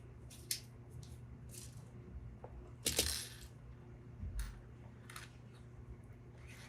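Light, scattered clicks and clinks of small hard parts being picked through and handled, about half a dozen, the loudest about three seconds in, over a faint steady hum.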